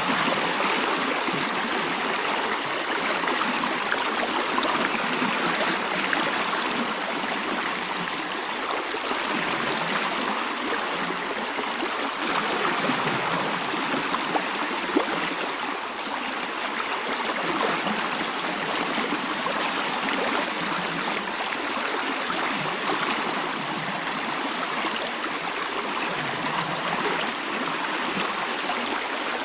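Mountain stream flowing over rocks: a steady rushing and babbling of water, even and unbroken throughout.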